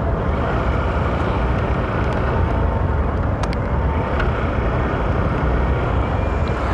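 Steady rushing of wind and road noise on the microphone of a camera mounted on a moving Honda motorcycle, with the bike's engine running underneath at a steady cruising speed. A few faint ticks sound over it.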